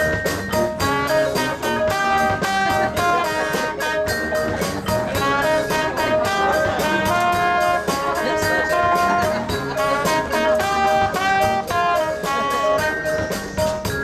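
High school marching band playing: brass section holding chords and moving lines over a steady drumline beat.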